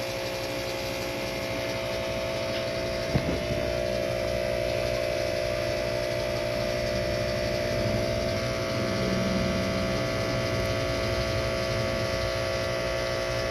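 Steady electrical hum of aquarium equipment, with a few fixed tones over a low drone and a single click about three seconds in.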